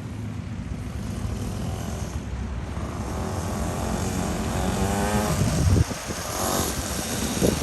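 Small 49cc two-stroke dirt bike engine running under way, getting steadily louder as the bike comes closer.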